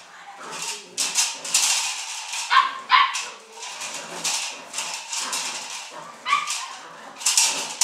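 A cloth bite rag swishing and scraping across a concrete floor in quick strokes as a Belgian Malinois puppy chases and bites at it, with a few short high yaps from the puppy.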